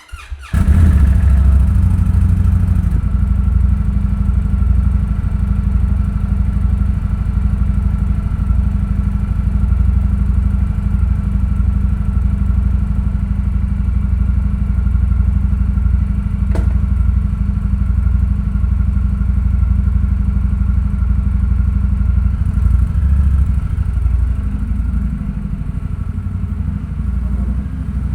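2025 Indian Scout Sixty Bobber's liquid-cooled V-twin, on its stock exhaust, starting up: a brief crank and the engine catches within about a second, then settles into a loud, steady idle. A single faint click about sixteen seconds in.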